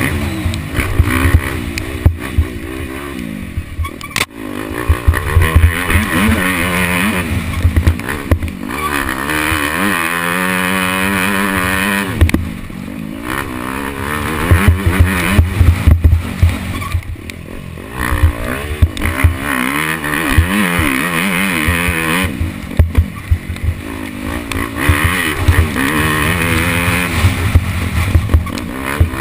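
Off-road dirt bike engine at race pace, revving up through the gears and falling back over and over as the throttle is opened and shut, with a couple of brief lulls where the throttle is rolled off.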